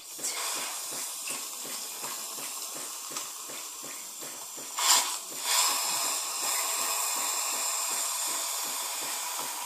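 Compressed-air duster can held upside down, spraying its liquid propellant into a cup of water with a steady hiss. About halfway there is a brief loud burst, and after it the hiss is a little louder.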